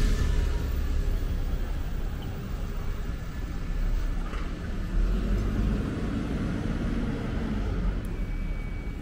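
Street traffic: a motor vehicle's low engine rumble passing close and fading away, over a steady hum of city road noise.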